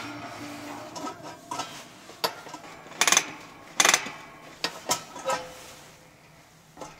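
Corona kerosene heater being handled as it is lit: a string of sharp metallic clicks and clanks, the loudest clatters about three and four seconds in.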